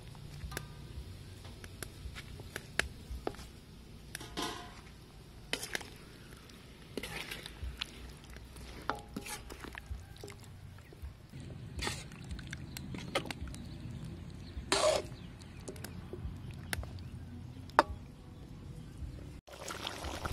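Metal ladle knocking and scraping against a large metal wok while chicken legs are turned in sauce: scattered clicks and knocks at irregular intervals, a sharper one near the end.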